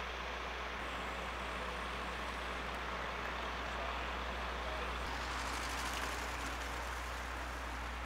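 Steady motor-vehicle engine and road noise, growing brighter and slightly louder about five seconds in.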